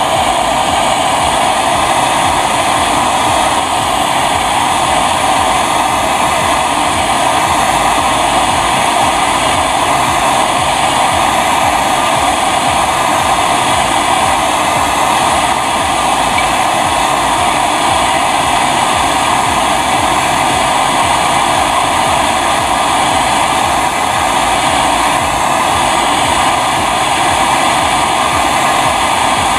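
Portable MAP-gas torch burning with a loud, steady rushing flame while it heats a copper pipe on a refrigerator compressor for brazing.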